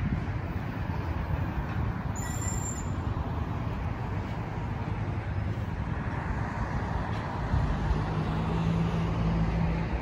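Light city road traffic: a steady rush of passing cars' tyres and engines. About three-quarters of the way in, a vehicle's low engine hum rises close by and holds until near the end.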